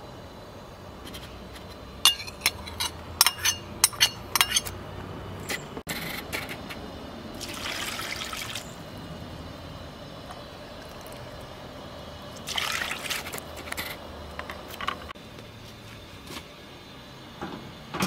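A metal ladle clinks sharply several times against an aluminium stock pot, followed by two short splashing pours of liquid into the pot. The pot's metal lid clanks on near the end.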